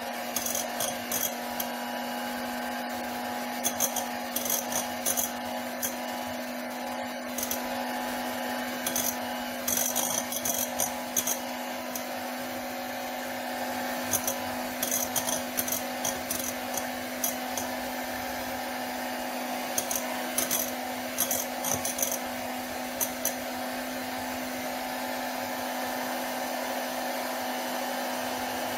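Electric hand mixer running steadily at one speed, its beaters whipping a mousse mixture in a glass bowl, with scattered clicks and rattles every few seconds.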